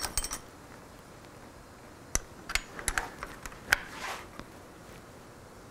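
Small metal wrench clinking and ticking against a bolt and bracket as a motorcycle brake fluid reservoir is tightened onto its mount: a scattering of sharp metallic clicks, the loudest a little after halfway through.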